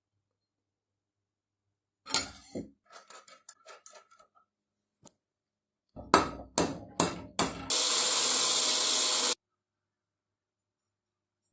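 Metalworking tool sounds: a knock and a run of small rattles and clicks, then five sharp hammer-like strikes in quick succession, then about two seconds of steady hissing noise that cuts off suddenly.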